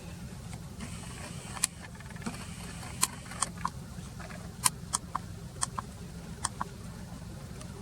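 A steady low engine hum, with irregular sharp clicks and ticks, a dozen or so, scattered over it.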